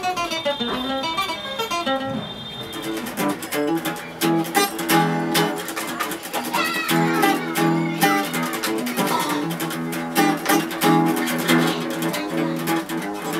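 Hollow-body guitar played jazz-style: a quick run of picked single notes, then a string of strummed and picked chords.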